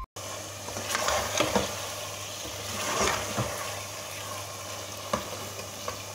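Beef pieces in garlic paste sizzling as they fry in a pressure cooker pan, with a steel ladle scraping and clacking against the pot now and then as the meat is stirred.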